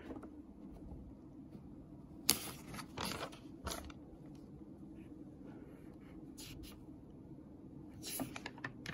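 Paper pages of an installation manual being turned by a gloved hand: several short rustles and crinkles, a few seconds apart.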